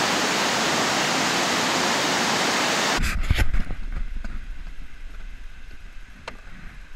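Steady rush of water from the dam, which cuts off abruptly about three seconds in. A few sharp clicks and knocks follow as a plastic tackle box is handled and its lid opened, with a faint low rumble behind, and one more click near the end.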